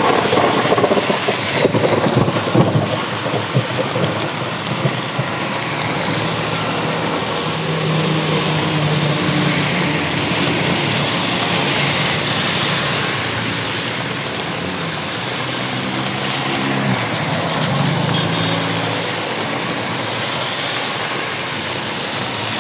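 Heavy rain with road traffic: vehicles passing on a wet road, their engine hum rising and fading over a steady rain hiss, with louder crackling in the first few seconds.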